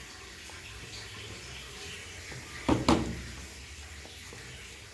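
Steady faint hiss over a low hum, broken about three seconds in by a short voice sound.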